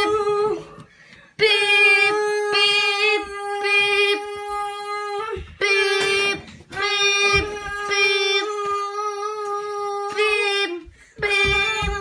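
Fire alarm horn sounding a steady, buzzy tone in long blasts broken by short pauses, with the alarm system set off in test. Low knocks and thumps from footsteps and handling run underneath.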